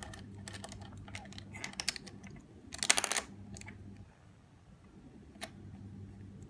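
Plastic pieces of a MoYu RS3M 2020 speed cube clicking as they are pressed and snapped into place during reassembly, with a quick run of sharp clicks about three seconds in, the loudest moment. A low steady hum runs underneath.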